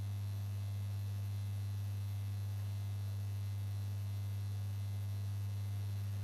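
Steady electrical mains hum: a low, unchanging drone with a fainter overtone above it, over faint hiss.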